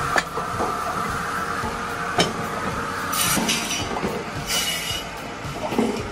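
A Binderberger WS 700 firewood saw and its conveyor running: a steady whine that fades about three seconds in, with sharp knocks and clinks as pieces of wood are cut and carried, and two short bursts of rattling noise near the middle.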